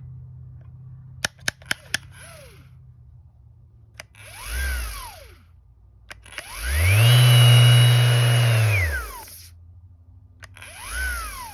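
MAXXT 5-inch random orbital sander motor pulsing on and off by itself: a short spin-up and wind-down about four seconds in, a longer run of about two seconds that rises, holds steady and winds down, and another short pulse near the end. This is the fault of a brand-new, defective unit. Four sharp clicks come a little over a second in.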